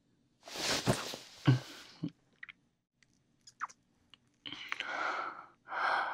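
A man's close-miked breaths on a binaural microphone with small wet mouth clicks and soft kissing sounds. Two longer breaths come near the end.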